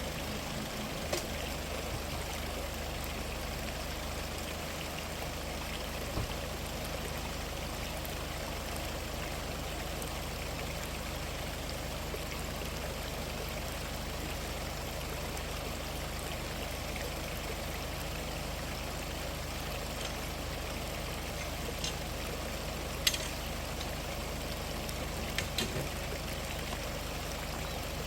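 Mountain valley stream running steadily over rocks, with a few brief clicks and knocks.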